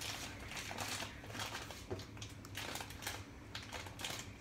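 A bag of sugar being handled and closed, its wrapping crinkling in a run of short, irregular rustles.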